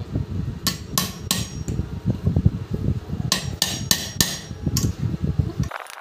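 Hammer blows on a nail used as a punch, driving the rivets out of a table fan motor's end cap so the worn sleeve bushes can be replaced. It is a quick, continuous run of metal-on-metal knocks, with several sharper ringing strikes about a second in and again between three and four and a half seconds.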